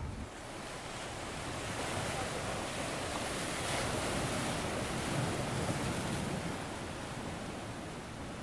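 Sea waves breaking and washing in: a steady rush of surf that swells a little in the middle and eases toward the end.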